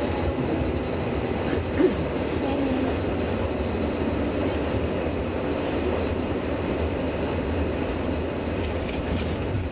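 A32 tram (Alstom Citadis) running along its track, heard from inside: a steady rumble from the running gear with a faint, steady high whine. There is one brief louder sound about two seconds in.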